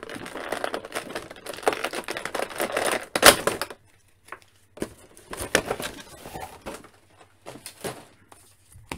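Clear plastic blister tray crinkling and crackling as an action figure is worked free of it, with one sharp snap a little over three seconds in. After that come scattered short rustles and clicks as the figure is handled.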